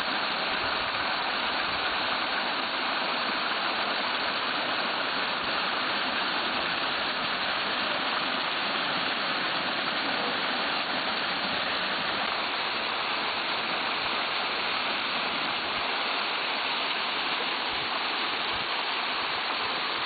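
Waterfall's steady, even rush of falling water.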